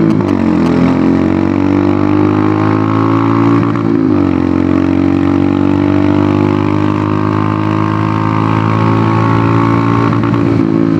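Royal Enfield Hunter 350's single-cylinder engine running through an aftermarket megaphone exhaust while riding on the road. The exhaust note dips and picks back up twice, at the start and about four seconds in, then climbs slowly and steadily.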